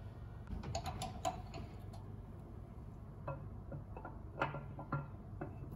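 Steel camshaft being slid by hand into the cam bearings of an LQ9 6.0-litre V8 block, its lobes and journals clicking and knocking against the bearings. The clicks come in a cluster about a second in and again from about three seconds to near the end.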